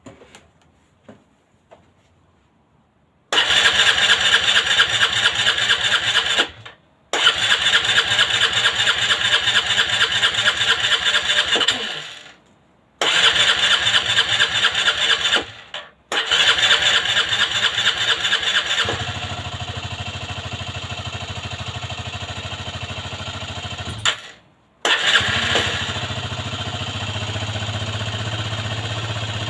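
Aprilia Leonardo 125 scooter's electric starter cranking the engine in four long bursts after a long lay-up, with short pauses between them. On the fourth try the engine catches and runs. Near the end it cuts out briefly, fires again and settles into a steady idle.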